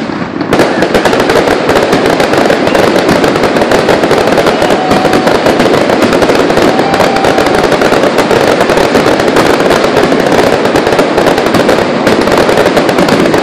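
Fireworks barrage: a dense, continuous rapid-fire crackling and popping of many bursts at once, setting in loudly about half a second in and keeping up without a break.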